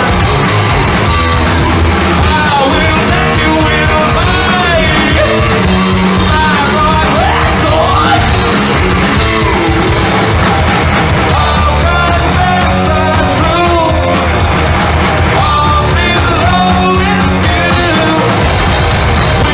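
Live heavy metal band playing loudly: distorted electric guitar and bass over drums, with shouted vocals at times.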